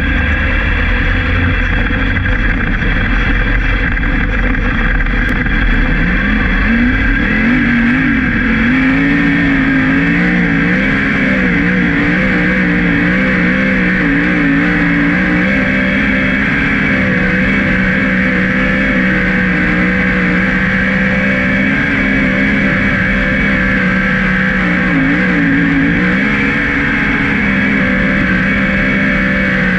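Winged sprint car's V8 engine at full race load, heard from the onboard camera. Its pitch climbs about six seconds in, then rises and falls through the corners, over a steady rush of wind and dirt.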